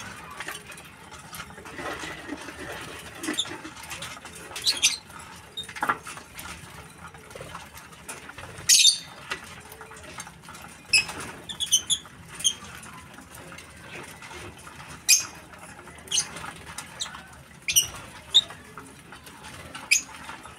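A flock of Fischer's and masked lovebirds feeding together, giving short, sharp, high-pitched chirps every second or two over a low steady rustle.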